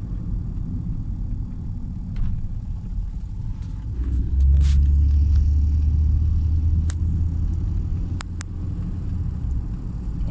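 Car cabin noise while driving: a steady low engine and road rumble that grows clearly louder about four and a half seconds in and eases off near the end, with a few faint clicks.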